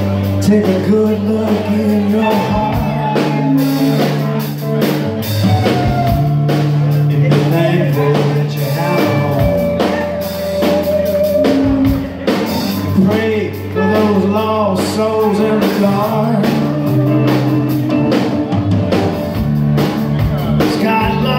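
Live blues-rock band playing: electric guitars and electric bass over a drum kit, with no vocal line.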